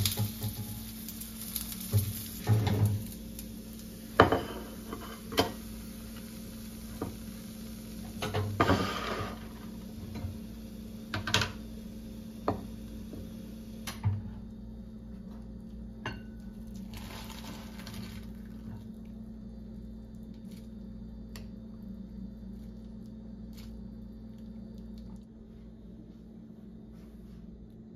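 Food sizzling in a frying pan while a utensil knocks and clanks against the pan and dishes every second or two. About halfway through the sizzling stops, leaving only faint clicks over a steady low hum.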